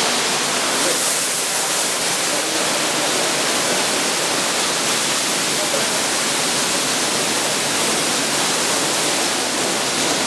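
Sino Star C7 automatic car wash machine spraying water over a car: a steady, even rush of spray.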